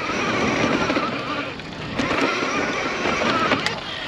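Nireeka Mega electric bike being ridden: a steady rushing noise of wind and tyres, with a few short rising whines from its 1500 W motor and two sharp clicks.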